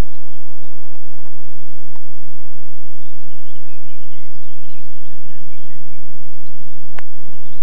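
A golf club striking the ball once, a sharp crack near the end, over a steady low hum and birds chirping.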